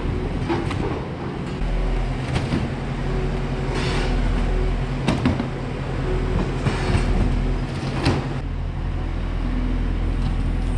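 Kubota skid steer loader's diesel engine running steadily, with several sharp clanks and scrapes as its forks roll up and shove a heavy strip of rubber floor belting.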